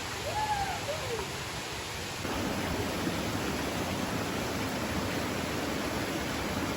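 Steady rushing water of a waterfall, getting louder about two seconds in.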